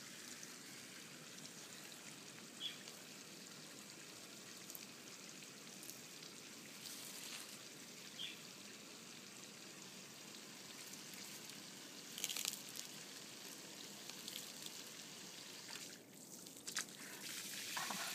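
Galapagos giant tortoise biting and tearing leaves held out by hand, giving a few short, crisp leafy crunches over a faint steady hiss.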